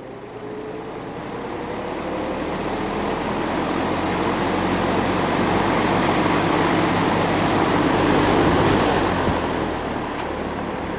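GE W-12 box fan started on high: its motor spins up with a faint rising whine, and the rush of air from the blades grows steadily louder over a steady motor hum, easing off slightly near the end.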